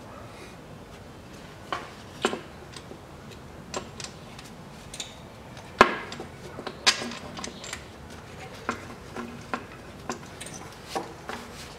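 Scattered light metallic clicks and knocks as a fuel rail with its injectors is worked loose and lifted off an engine. The sharpest knock comes about six seconds in, with another about a second later.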